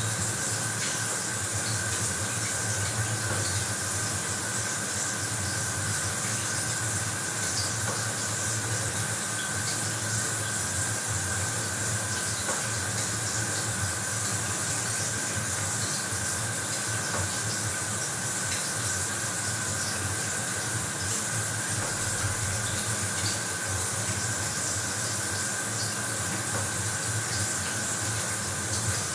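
Bathroom shower running: a steady spray of water hissing evenly, with a faint steady tone running through it.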